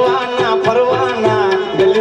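Live devotional folk music: a harmonium melody with a quick, steady drum beat.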